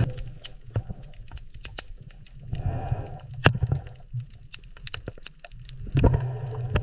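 Irregular sharp clicks underwater at a reef cleaning station where small shrimp are cleaning a giant grouper's teeth, over a low rumble that swells a few times.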